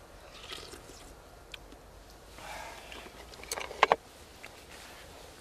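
Eating utensils handled against a camping pan and dishes: soft handling noise and small clicks, then two sharp clinks close together a little before four seconds in.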